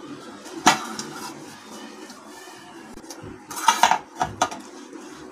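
A silicone pastry brush spreads oil inside a metal baking tin, making light scraping and clattering against the tin. There is one sharp knock under a second in and a short run of clatters and clicks between about three and a half and four and a half seconds.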